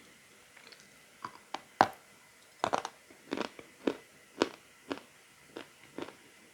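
Chalk being bitten and chewed: about a dozen sharp, irregular crunches, the loudest a little under two seconds in.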